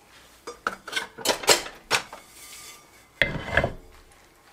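Kitchen handling sounds on a wooden cutting board as julienned radish strips are gathered up: a run of short scrapes and clicks, then a heavier, deeper knock about three seconds in.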